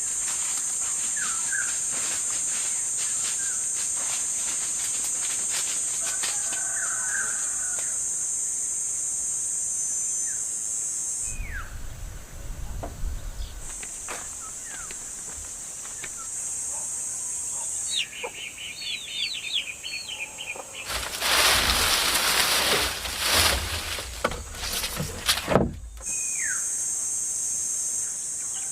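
A steady high-pitched drone of insects in rural outdoors, cutting in and out, with scattered bird chirps and a quick repeated call about two-thirds of the way in. Near the end, a few seconds of loud noise drown everything out.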